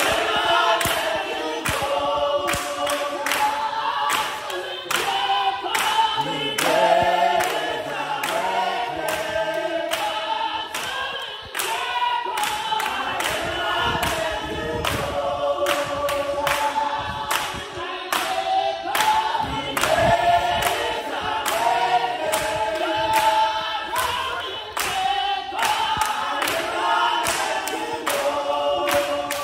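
A church congregation singing together as a choir, with sharp hand claps on the beat, about two to three a second.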